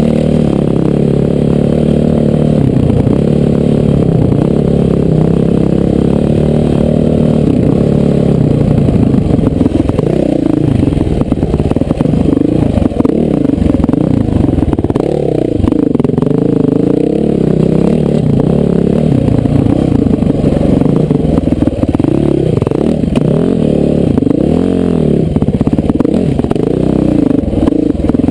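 Honda CRF450R dirt bike's single-cylinder four-stroke engine revving up and down over and over under riding load, with clattering knocks from the bike over rough ground. Muffled, as heard from a helmet-mounted camera.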